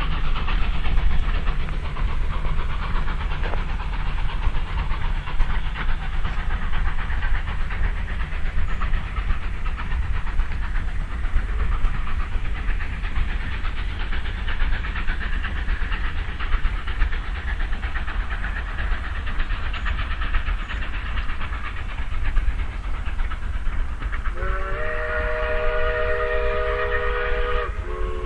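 Steam locomotive McCloud No. 18 running away into the distance with a steady low rumble and hiss. About 24 seconds in, its steam whistle sounds a chord of several notes held for about three seconds, then, after a brief break, a second blast begins at the very end, whistling for a road crossing.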